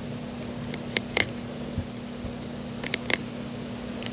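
Knife work on a fish fillet: a handful of short, sharp clicks and taps as the blade works around the rib cage, over a steady low hum.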